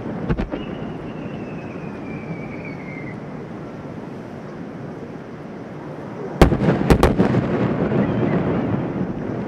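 Large aerial firework shells bursting in the distance: a couple of small cracks, then three loud bangs in quick succession about six and a half seconds in, followed by a low rolling rumble. About half a second in, a thin whistle falls in pitch for a couple of seconds.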